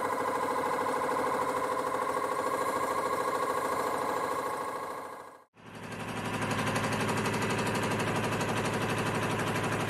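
Rhombic-drive Stirling engine running at about 790 rpm, a fast, even mechanical clatter that runs rough. The sound fades out briefly and comes back about five and a half seconds in.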